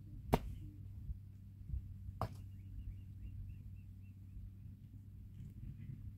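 Two sharp knocks, the first about a third of a second in and the second about two seconds later, over a steady low hum.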